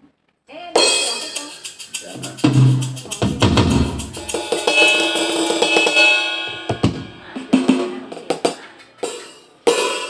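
Roland SPD-20 electronic percussion pad struck with drumsticks, sounding its drum and percussion samples in a quick run of hits that starts just under a second in, with a deep bass-drum hit a couple of seconds later. The unit is being test-played after a repair of its crackling output.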